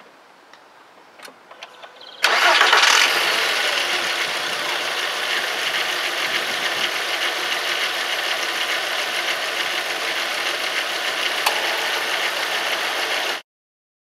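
Volkswagen 2.3 V5 petrol engine starting about two seconds in, briefly louder at first, then idling steadily with a newly fitted coil pack. To the owner it sounds better, a sign the misfire is cured. The sound stops abruptly near the end.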